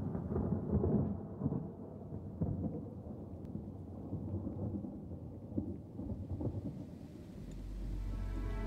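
Thunder rumbling with rain, the sound-effect opening of a pop song. A low, steady music tone swells in near the end.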